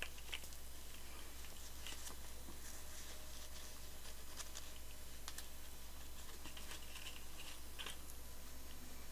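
Faint rustling and small scattered clicks of hands handling a toy doll and its fluffy accessory while trying to fit it on, over a steady low hum.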